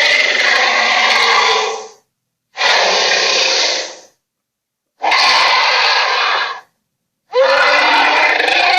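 Monster creature sound effects: four rough, noisy vocal-like calls, each lasting about one and a half to two seconds, with short clean silences between them.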